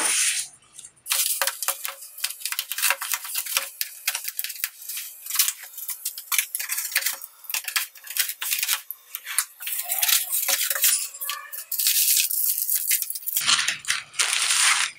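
Quick run of clicks, crinkles and scrapes from a cardboard shipping box and its packing being opened. It sounds thin, with no low end.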